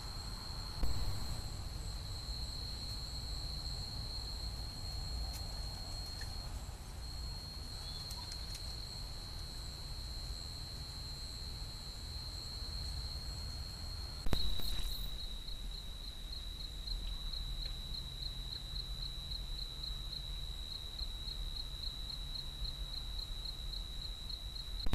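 Night insect chorus: a steady high-pitched trill over the trail camera's low hiss. About halfway through it switches abruptly, with a click, to a slightly lower trill with a faint pulse two or three times a second.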